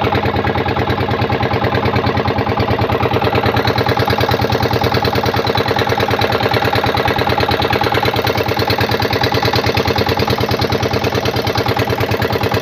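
Small fishing boat's engine running steadily at an even speed, a close, continuous chugging with no change in pace.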